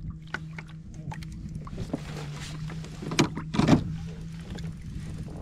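Rain tapping on a kayak and gear in scattered small clicks, over a steady low hum. Two louder knocks come about three to four seconds in.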